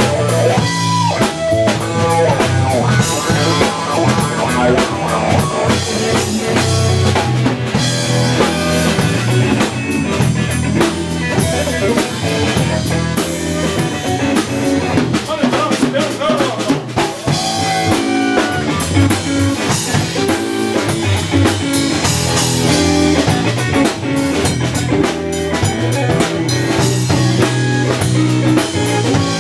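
Live Texas blues-rock band playing an instrumental passage: electric guitar over bass and a drum kit keeping a steady beat.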